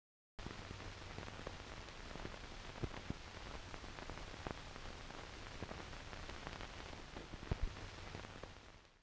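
Surface noise of an old film print's soundtrack: a faint, steady hiss with a low hum, scattered crackles and pops, and a few louder pops about three seconds in and near the end.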